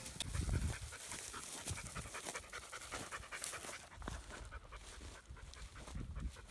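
Working kelpie panting rapidly and steadily, out of breath from working sheep.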